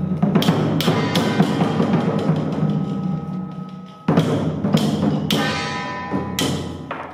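Chinese temple percussion: a steady pounding drum with ringing gongs and repeated cymbal crashes. It fades a little past the middle, then strikes up loudly again.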